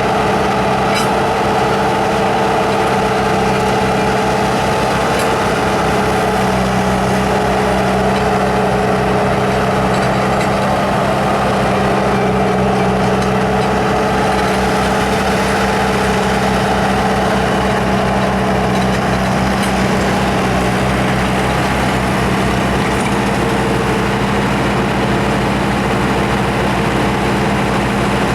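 Bobcat T300 tracked skid steer's four-cylinder diesel engine running steadily at a constant speed, with no revving.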